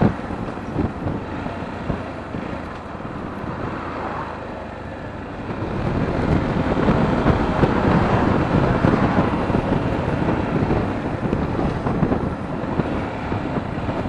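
Sinnis Terrain T125 125cc motorcycle running under way, mixed with wind buffeting the rider's microphone; the ride gets louder from about six seconds in. The freshly serviced bike is running sweet.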